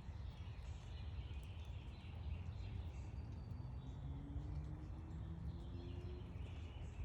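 Backyard birds giving scattered short chirps over a steady low rumble of outdoor background noise. A faint low hum rises slowly in pitch from about three to six seconds in.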